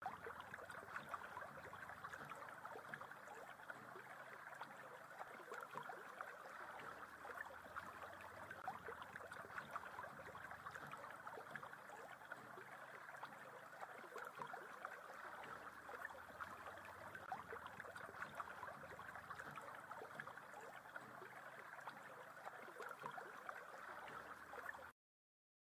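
Shallow river water flowing and rippling over stones, a faint steady babble with fine splashy crackles; it cuts off abruptly near the end.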